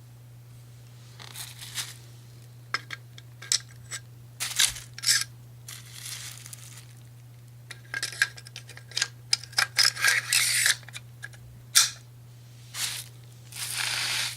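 Small metal parts of an AR-15 upper and bolt carrier group being handled, making scattered clicks and clinks, mixed with stretches of plastic packaging rustling and crinkling.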